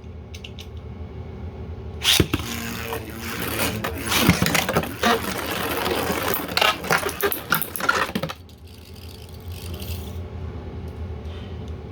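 Two beyblades, one of them 3D-printed, launched about two seconds in and then spinning and clashing in a stadium with a rapid clatter of plastic hits. The clashing stops abruptly about six seconds later.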